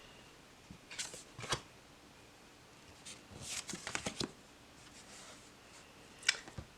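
Tarot and oracle cards being handled and laid down: soft slides and taps in a few short bursts, about a second in, again around three to four seconds in, and once more near the end.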